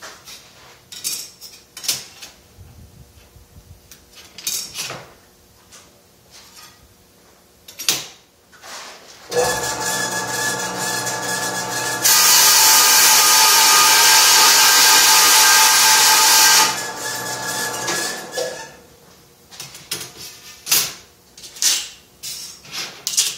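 Vertical bandsaw switched on about nine seconds in, running with a steady hum; about three seconds later the blade cuts through a strip of 16 gauge sheet steel, a loud hissing cut lasting about four and a half seconds, after which the saw runs free briefly and winds down. Before and after, light clinks and knocks of steel strips and tools being handled on the bench.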